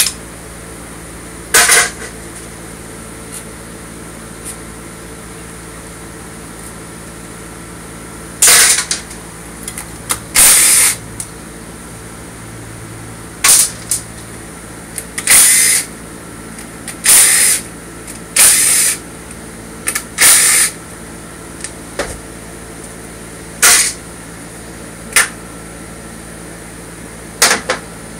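Power tool run in about a dozen short bursts of under a second each, driving out bolts while a Honda automatic transmission is taken apart, over a steady room hum.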